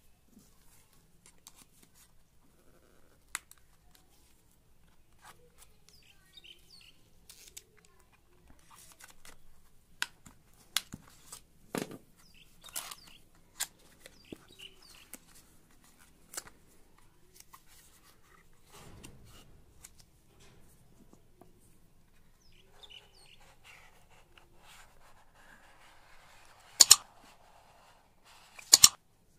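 Cardboard retail box being handled and opened by gloved hands: scattered taps, scrapes and soft rustles of card, with two loud sharp clicks near the end.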